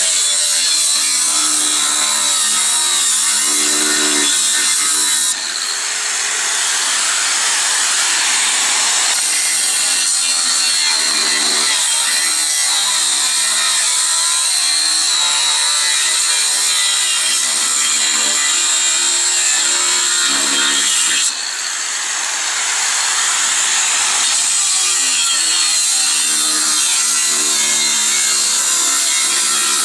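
Angle grinder cutting through 6 mm metal plate: a loud, continuous grinding hiss over the motor's whine. The level dips briefly twice, about five seconds in and again about twenty-one seconds in, then picks straight back up.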